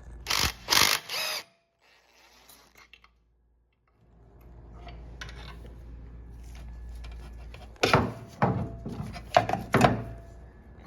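Metal hand tools knocking and clanking against motorcycle parts during disassembly: a quick run of sharp knocks at the start, then a low steady hum, and another cluster of sharp knocks near the end.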